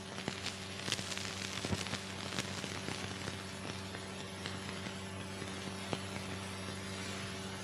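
Noise of an old optical film soundtrack: a steady hiss and low hum with scattered crackles and clicks, and no other sound.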